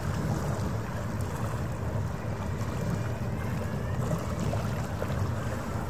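Steady low rumble of a passing harbour ferry's engines heard across the water.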